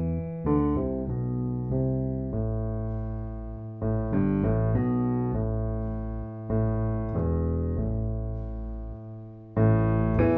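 Background piano music: a slow sequence of sustained chords and notes, each struck and left to ring, with a louder chord struck near the end.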